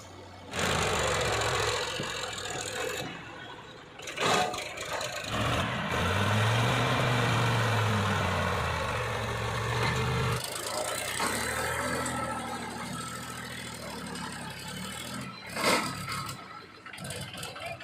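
Diesel engine of a working backhoe loader running under load, its pitch rising and falling as it revs up and back down. Two loud knocks cut through, one about four seconds in and one near the end.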